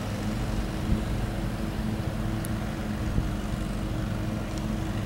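Diesel freight locomotives approaching on the main line, their engines giving a steady low rumble with a constant hum.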